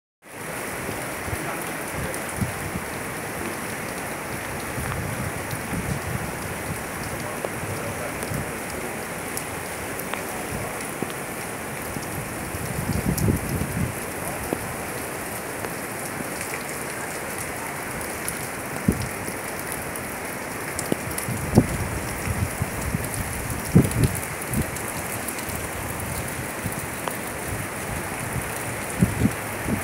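Heavy rain falling steadily, with brief low thumps now and then.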